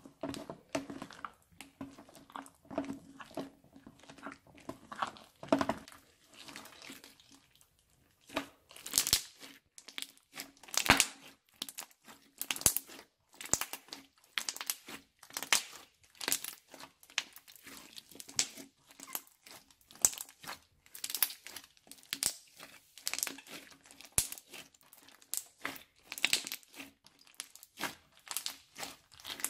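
Crunchy fluffy slime, studded with small beads, being stirred in a plastic tub and then kneaded and pressed by hand, making rapid crackles and pops. The crackles get louder and sharper from about eight seconds in, when the kneading starts.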